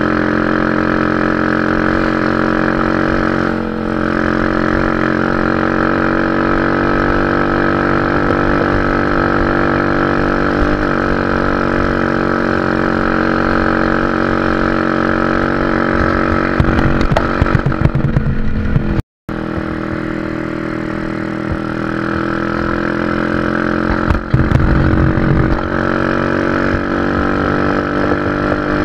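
Honda Dream 100cc motorcycle's single-cylinder four-stroke engine running at a steady pace while riding. Twice, about two-thirds through and again near the end, rough knocking joins the engine note, and the sound cuts out for an instant between them.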